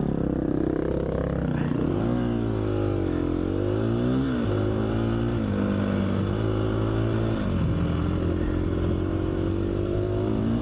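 Dirt bike engine under way, its note rising and falling with the throttle and stepping suddenly in pitch several times.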